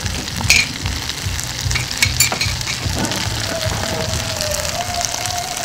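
Spicy pork intestines (bul-makchang) sizzling in a pan over high heat, with a few sharp clicks. Music with a thumping bass beat plays in the background.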